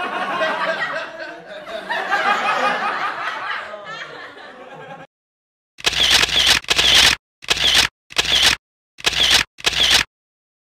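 People laughing and chuckling. It stops about five seconds in, and after a brief silence come six short, harsh noisy bursts, each about half a second long, in quick succession.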